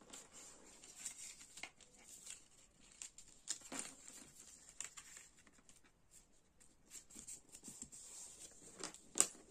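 Card paper being folded and pressed flat by hand on a cutting mat, with faint rustling and scattered light taps; a sharper tap about four seconds in and another near the end.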